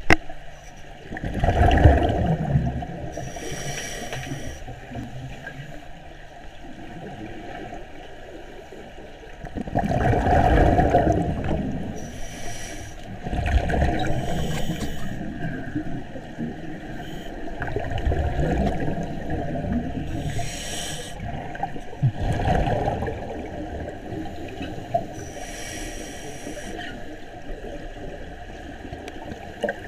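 Scuba breathing heard underwater: a regulator hisses on each inhalation and exhaled air gurgles out as low rushes of bubbles, about a breath every several seconds.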